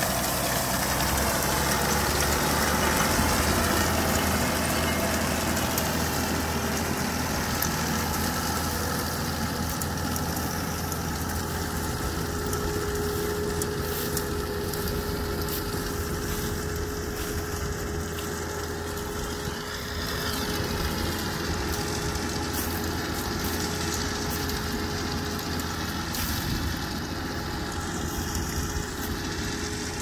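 Tongyang TX85 tractor's diesel engine running steadily as it pulls a PTO-driven rotary rake, with a steady whine over the engine note, slowly fading as the tractor moves off across the field.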